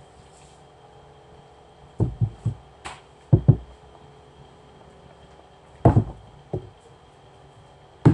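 Dull knocks and thuds of a thermos jug and a metal pot being handled and set down on a countertop, in short clusters about two seconds in, three and a half seconds in, six seconds in, and at the very end.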